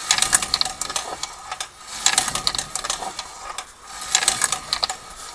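Rapid metallic clicking and rattling from inside a drum brake, coming in bursts about every two seconds as the wheel turns. The handbrake parts and shoe-retaining springs have broken loose and are tumbling inside the drum.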